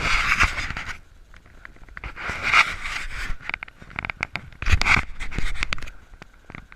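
A person breathing hard while trudging through deep snow, with three loud breaths about two seconds apart. Between them come short crunching and scraping ticks of footsteps in the snow.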